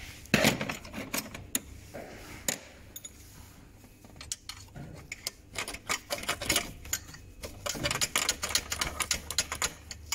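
Screwdriver picking and scraping at hard crystallized AdBlue deposits clogging the exhaust's reductant injector port, chipping a hole through the blockage: many quick, irregular metallic clicks, coming thicker in the second half.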